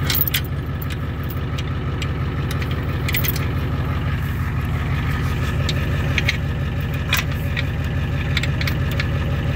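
A tow truck's engine idling steadily, with irregular metallic clinks of a tow chain being wrapped around a car's lower control arm.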